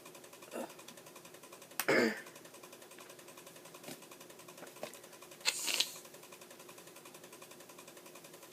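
Handling noise: a few soft clicks and a short breathy sound about two seconds in, then a hissy rustle a little past halfway, over a steady low hum.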